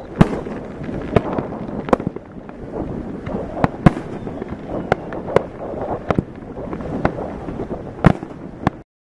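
Many fireworks going off at once: a continuous crackle of distant bursts with about a dozen sharper bangs scattered through it. The sound stops abruptly near the end.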